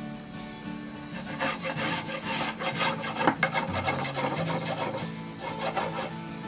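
Metal spokeshave cutting along a wooden cane shaft in quick repeated strokes, each peeling off a shaving as the square stock is rounded. The strokes start about a second in.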